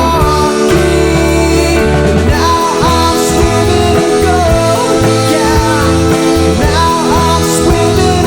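Rock music from an indie psychedelic-rock band, in a stretch without sung words: steady, loud, with held bass notes and bending guitar lines.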